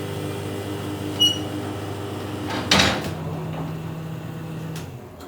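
A short electronic beep about a second in, then a loud clunk near three seconds in, over a steady low hum that stops shortly before the end.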